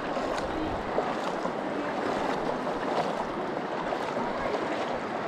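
The North Fork of the Virgin River rushing steadily around wading legs, with a few small splashes.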